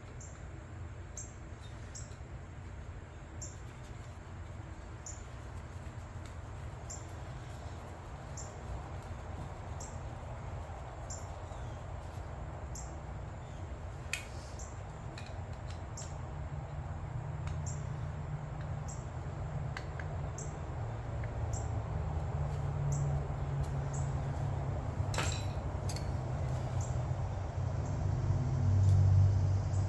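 Steady low mechanical hum that grows louder through the second half, with faint regular ticks about once a second and a couple of sharp small clicks.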